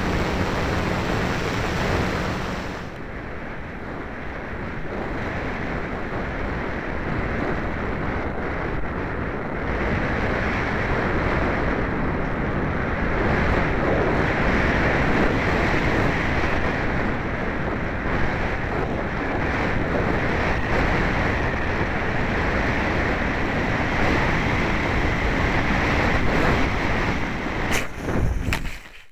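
Steady rushing wind noise on the onboard keychain camera's microphone of a ParkZone Radian Pro RC glider in flight, ending in a few sharp knocks about a second before the end as the plane touches down on the grass.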